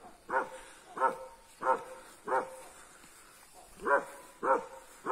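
A dog barking at approaching brown bears: six short barks, each rising and falling in pitch. Four come in an even run, then after a pause of about a second and a half, two more.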